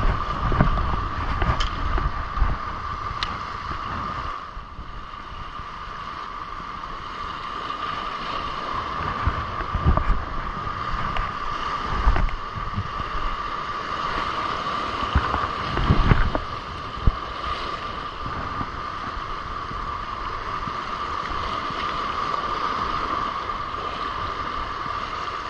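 Sea surf washing over shoreline rocks in a continuous rush, with a few short low thuds on the microphone.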